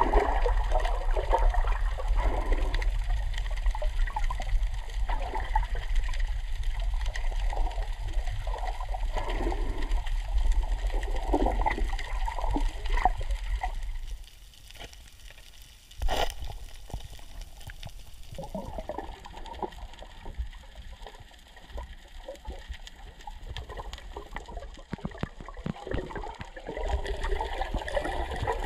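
Sea water sloshing and gurgling, with a low rumble that drops away about halfway through and a single sharp knock soon after.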